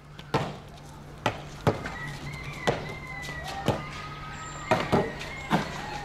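About eight sharp knocks at irregular intervals, over a low steady hum.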